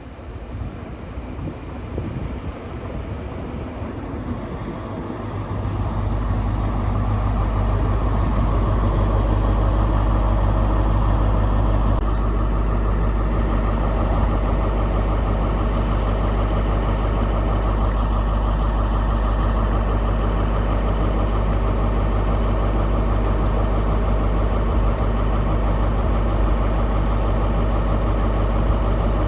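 Diesel train's engine running, growing louder over the first six seconds and then holding a steady low drone.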